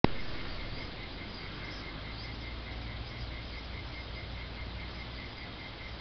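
A cricket chirping in an even rhythm, about four short chirps a second, over a low steady rumble. A sharp click at the very start.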